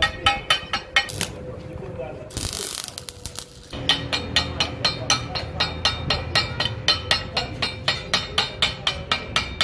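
Ratchet wrench being worked on a truck tie rod end, its pawl clicking in quick even strokes of about four clicks a second. A brief hiss breaks in a couple of seconds in before the clicking resumes steadily.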